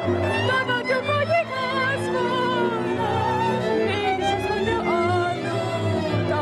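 Hungarian Gypsy band music played without singing: a lead violin plays the melody with a wide vibrato over a cimbalom, cello and double bass accompaniment.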